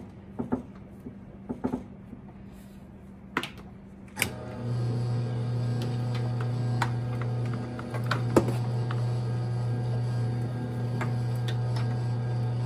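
A few clicks of the electric wire stripping machine being adjusted, then a click about four seconds in as its motor switches on and runs with a steady low hum, light ticks sounding over it as a wire is fed through the blade.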